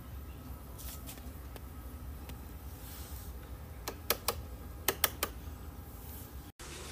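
Sharp clicks from the rotary control knob on a Simplus blender's stainless base being turned: a couple about a second in, then a quick run of louder clicks around four to five seconds in. The motor is not running, and a faint low hum sits underneath.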